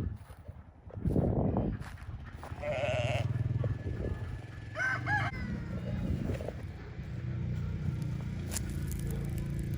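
Farmyard fowl calls, with two short pitched calls from a rooster or chickens about three and five seconds in, over a steady low hum.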